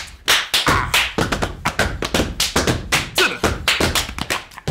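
Step-dance body percussion by two performers: foot stomps, hand claps and slaps on the body in a fast rhythm of sharp hits, several a second.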